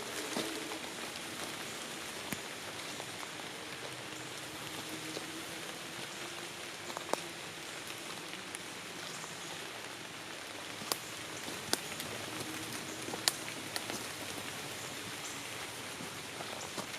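Light rain falling on tree leaves: a steady hiss of drops, with a handful of sharper single drops landing close by, spread through.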